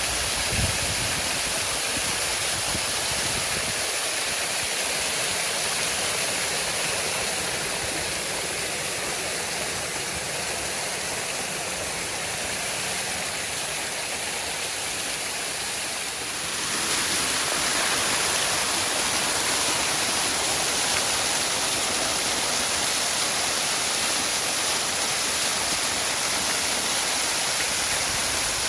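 Waterfall rushing in a steady, dense roar of falling water. About two-thirds of the way through the sound turns abruptly brighter and a little louder.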